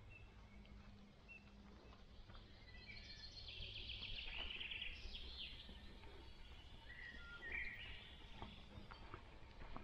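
Forest birds singing, with a cluster of chirps and trills about three to five seconds in and another short call near eight seconds, over a faint steady low hum.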